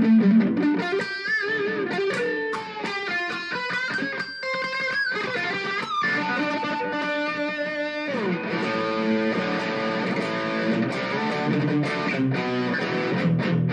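Ibanez Gio electric guitar with Tokai pickups played through an amp: single-note lead lines with string bends and vibrato, a note sliding down in pitch about eight seconds in, then ringing chords.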